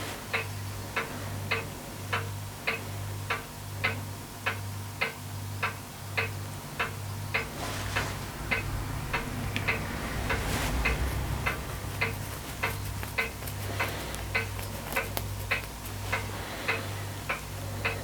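Even, steady ticking, about two ticks a second, over a low hum that pulses in time with the ticks. A low rumble swells briefly around the middle.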